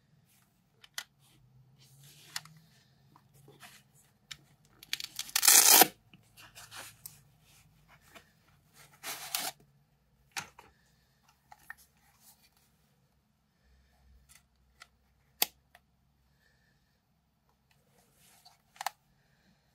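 Hands handling a leather camera pouch and the camera: scattered clicks and rustles, with a loud scratchy burst about a second long some five seconds in and a shorter one near nine seconds.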